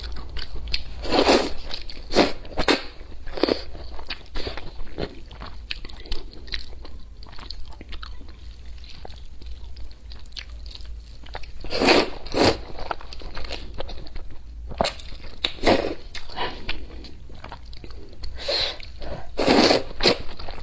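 Close-miked slurping and wet chewing of sweet potato glass noodles in hot and sour broth, with small mouth clicks throughout and several louder slurps, bunched in the first few seconds, about twelve seconds in, and again near the end.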